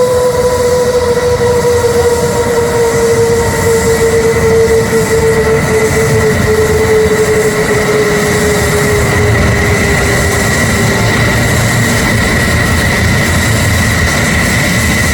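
F-15SG fighter jet engines (GE F110 turbofans) running on the ground with a loud, high-pitched turbine whine over a rushing rumble. One whine slowly drops in pitch over about ten seconds while a higher whine holds steady.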